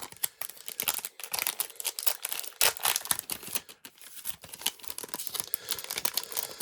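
Foil wrapper of a Pokémon booster pack crinkling and tearing as it is opened, a dense run of crackles that is loudest about two and a half seconds in.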